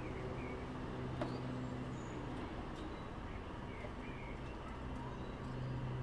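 A steady low mechanical hum, growing a little louder near the end, with a few short faint bird chirps and light clicks over it.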